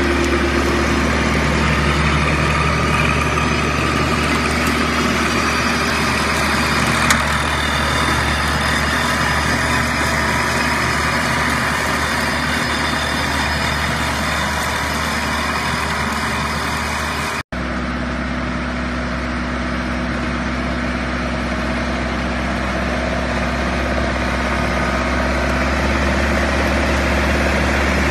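Small diesel garden tractor's engine running steadily under load, with its rear flail mower spinning and chopping grass and brush. The sound cuts out for an instant about two thirds of the way through, then carries on.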